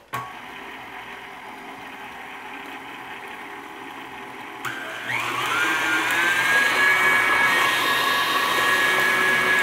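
KitchenAid Classic tilt-head stand mixer whipping a chocolate cake batter with its wire whip: a steady motor hum at low speed. About five seconds in it is turned up, its whine rising in pitch and getting louder, then running steady at the higher speed.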